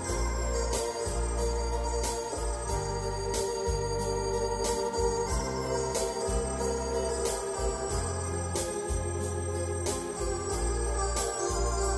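Hammond X66 organ playing sustained chords and melody over a bass line, with a steady drum beat underneath.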